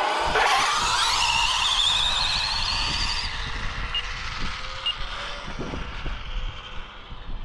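Arrma Limitless speed-run RC car launching on its brushless motor: the motor and drivetrain whine rises steeply in pitch over about three seconds as it accelerates away, then fades as the car heads off into the distance.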